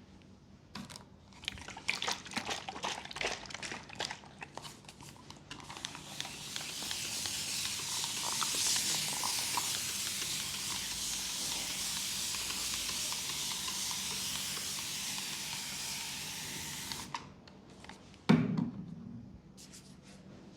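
Scattered clicks and rustles of handling, then a steady spray hissing for about eleven seconds before cutting off suddenly. A single sharp thump comes near the end.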